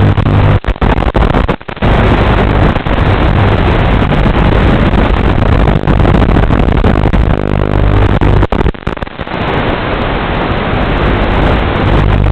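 Loud hissing static with a low buzz coming and going underneath, cutting out briefly a few times: the noise on the audio of an analog FPV video link recorded from a quadcopter's camera feed.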